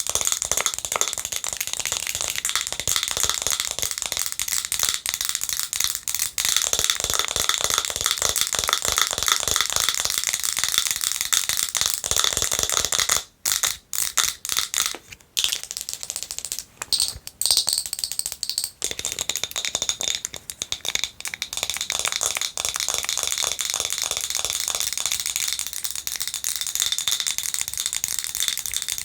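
Fast, aggressive long-nail tapping and scratching on a glass jar with a wooden lid: a dense stream of rapid clicks and scrapes, broken by a few short pauses around the middle.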